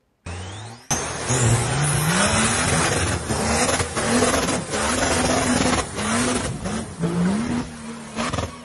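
Off-road SUV engine revving hard in repeated rising surges, roughly once a second, over a loud rushing splash of water as the vehicle ploughs up through a stream.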